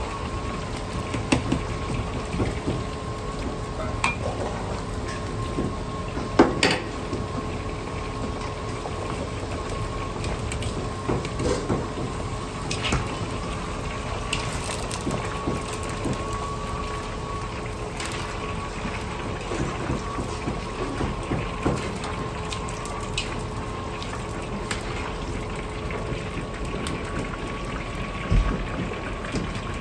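Battered pork pieces deep-frying in a wok of hot oil, the oil bubbling and sizzling steadily. Metal clinks of a ladle and a wire spider strainer against the wok come now and then, the sharpest about six and a half seconds in and another near the end, over a steady hum.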